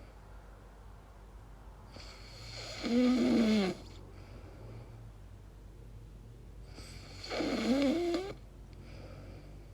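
A woman snoring in her sleep: two loud snores about four seconds apart, each carrying a wavering, voice-like pitch that bends up and down, with quieter breathing between them.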